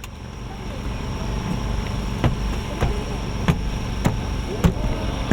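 A starmine fireworks barrage starting: shells fired from mortars in quick succession, a sharp launch thump about every half second to second, over the chatter of a crowd.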